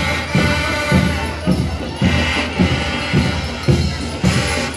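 Student marching band playing: held notes over a steady drum beat at about two beats a second.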